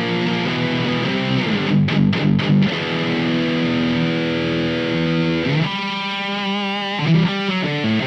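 Electric guitar played through the LPD Pedals Eighty7 Marshall-style amp-in-a-box pedal with its gain turned high, giving a heavily distorted tone. It plays held chords, then about two-thirds of the way in a higher line with wide, wavering vibrato, then chords again.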